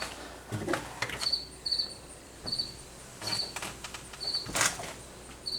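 A cricket chirping in short high chirps every half second to a second, with a few knocks or clicks, the loudest one about four and a half seconds in.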